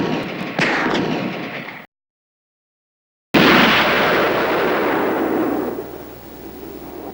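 Recorded gunshots: a shot about half a second in, its echo ringing on until the sound cuts off abruptly. After a gap of dead silence comes a single louder blast with a long rolling decay lasting several seconds.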